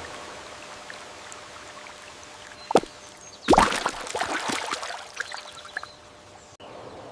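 Water pouring and splashing: a single plop a little under three seconds in, then about two seconds of splashing that dies away.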